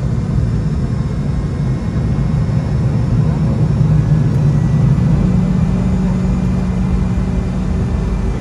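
Cabin noise of a Boeing 717-200 taxiing, its rear-mounted Rolls-Royce BR715 turbofans at idle: a steady low rumble, with a low hum growing stronger about halfway through.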